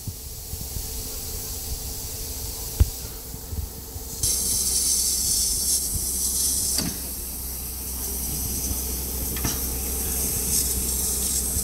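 Standing steam locomotive 01 519, a DR class 01.5 express engine, letting off steam: a loud hiss starts abruptly about four seconds in and eases a little a few seconds later, over a steady low rumble. A single sharp click comes near three seconds in.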